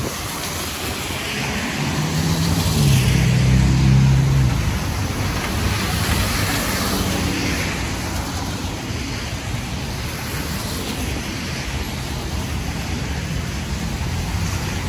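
Street traffic on a wet road: a car passes a few seconds in, its engine hum and tyre hiss swelling and fading, over a steady wash of road noise.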